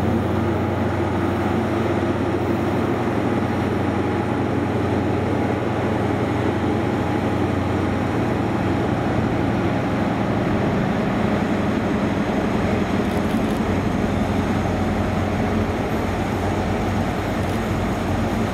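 Diesel engines of InterCity 125 (HST) power cars: a steady low engine hum from a departing train that fades after about eight seconds, then the sound of a second HST building as it runs in along the platform near the end.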